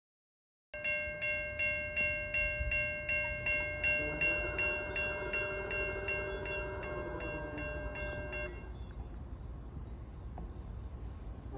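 Railroad grade-crossing bell ringing in quick repeated dings, a little over two a second, starting suddenly just under a second in and stopping about three-quarters of the way through once the crossing gates are down; a low rumble remains afterwards.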